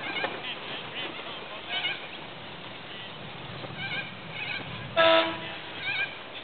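A single short, loud horn blast about five seconds in, the signal sounded as a boat finishes a race, over repeated short calls of birds.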